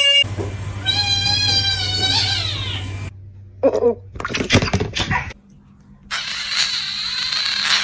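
Domestic cat giving one long, wavering meow that trails off downward, followed by a few knocks and then a stretch of steady hissing noise near the end.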